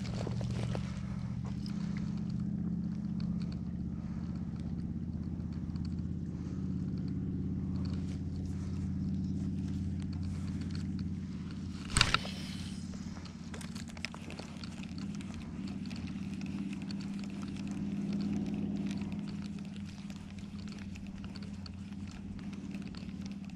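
An engine drones steadily and low throughout. A single sharp click comes about twelve seconds in, as a spinning rod is cast.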